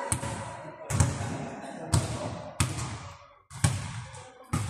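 Basketball bouncing on a gym floor: about six sharp, echoing bounces less than a second apart.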